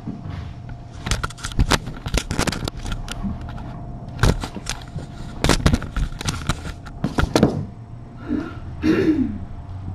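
Irregular sharp knocks and thumps, some in quick clusters, as a person moves about a room where kittens are playing. A short pitched sound, voice-like and rising then falling, comes near the end over a faint steady hum.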